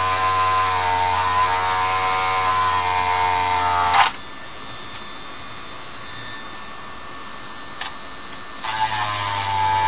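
Dremel rotary tool running at its lowest speed, a steady whine as it sands the edge of ABS plastic armour. It cuts off abruptly about four seconds in and starts up again near the end.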